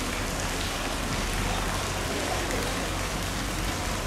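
Steady hiss of falling or running water, even and unbroken.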